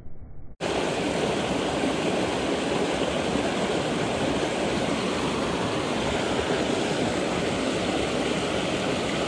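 A mountain brook running over boulders and small cascades: steady rushing water. It starts abruptly about half a second in.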